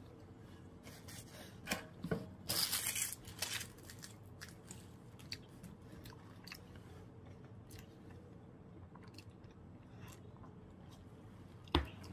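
A person chewing food close to the microphone, with small mouth clicks, and a short burst of paper wrapper rustling about two and a half seconds in.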